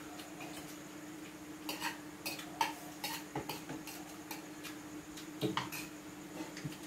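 Chopsticks and spoons clinking and tapping against bowls and plates while eating: scattered light clicks, most of them between about two and four seconds in and again just after five seconds. A steady low hum runs underneath.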